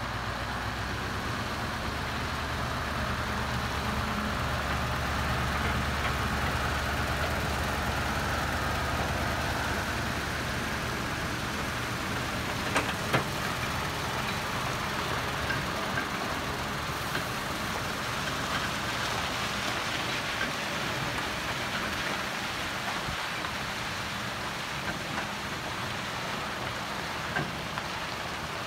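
Scania R164 heavy tractor unit's V8 diesel engine running as the truck pulls a low-loader trailer slowly past. Its low, steady engine note is strongest in the first part and fades after about twelve seconds, over a steady hiss, with a couple of sharp clicks about halfway.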